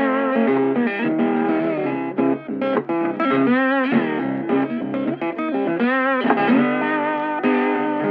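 Background music: a plucked guitar instrumental, with notes bent and wavering twice.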